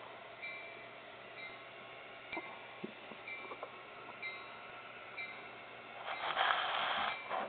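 A bell rings steadily, about once a second, as on a sound-equipped HO model locomotive, over faint running noise. Near the end a loud rushing noise lasts for about a second.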